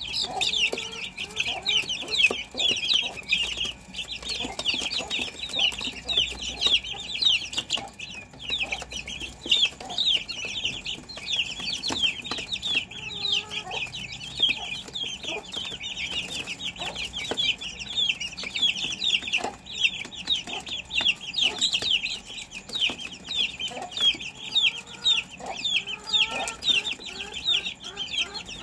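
A flock of young chickens peeping nonstop: a dense stream of short, high, downward-sliding cheeps, several a second and overlapping, with a few lower calls now and then.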